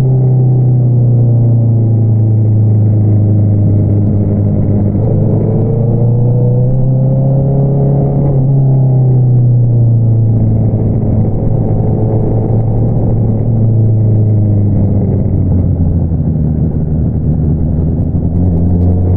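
2022 Honda CBR650R inline-four engine running through an Akrapovič single-outlet exhaust under way at steady revs. The engine note climbs gently for a few seconds, drops sharply about eight seconds in, then holds steady again.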